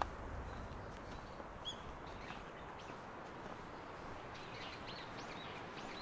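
Small birds chirping in short, high calls: a few single chirps, then a quick run of several around the fifth second. Under them is a steady low outdoor background noise.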